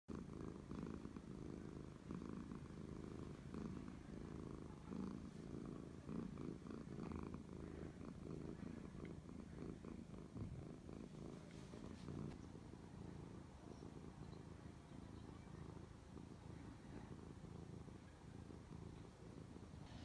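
Domestic cat purring steadily, a little softer in the second half.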